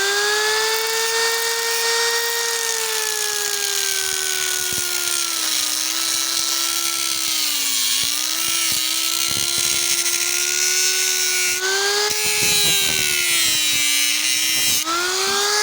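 Electric grinder whining at speed, coming up to full pitch at the start. Its pitch sags as it is pressed into a homemade helicoil to grind off the excess part, and rises again briefly about twelve seconds in and near the end when the load comes off.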